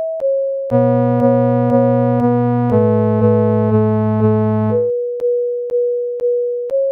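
Synthesized sonification of Bitcoin price data: a steady pure tone with a sharp percussive click about twice a second. About a second in, a loud buzzy synthesizer chord with deep bass joins it, shifts pitch partway through, and drops out about two seconds before the end, leaving the single tone and clicks.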